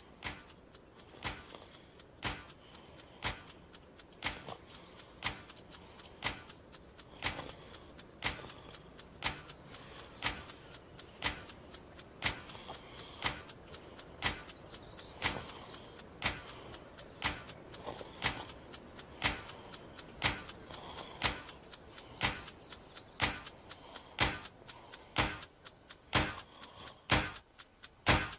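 A clock ticking, about one sharp tick a second, the ticks coming faster and louder near the end.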